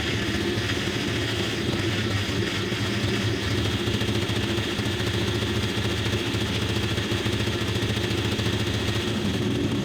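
The V8 engine of a rebuilt 2011 Ford F-150 SVT Raptor running steadily during its first run after being brought back from a wreck.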